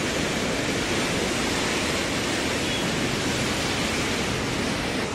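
Steady rushing of a river in flood as it pours through the open gates of a barrage and churns below.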